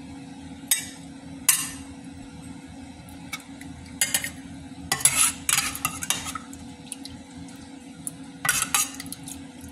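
A metal ladle clinks and scrapes against a stainless steel pot as sauce is stirred and ladled, with sharp clinks at intervals, most of them between about five and six seconds in. A steady low hum runs underneath.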